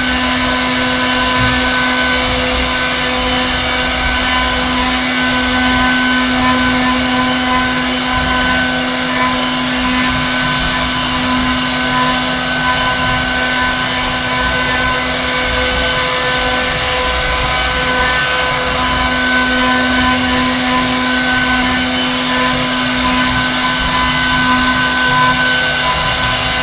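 CNC router spindle running steadily as it carves wood, a constant motor whine over the noise of the cutting.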